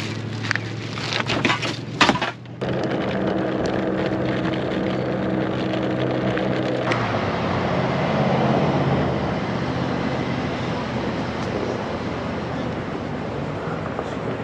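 Plastic trash bag crinkling, then a wheelie-bin lid banging shut about two seconds in. After that, a steady rush of wind and rolling noise with a low hum while riding a scooter along a street; the hum fades out about halfway through.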